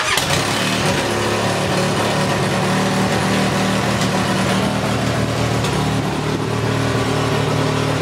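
Polaris Sportsman ATV engine running at a steady, high idle that is pretty rough, which the mechanic puts down to an aftermarket carburetor fitted with its vents blocked off.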